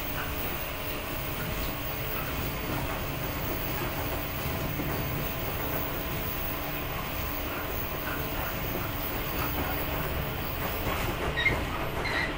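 Running sound inside a JR 115 series electric motor car: the steady hum of its traction motors and gearing over the rumble of wheels on track, at an even level with no change in speed.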